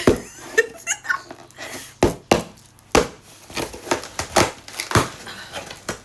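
Packaging being unwrapped and handled: a fairly loud run of irregular sharp crinkles and crackles, several a second.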